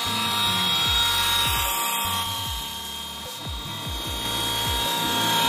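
RC model helicopter in flight, its rotor and motor giving a steady whine, under background music with a bass drum beat.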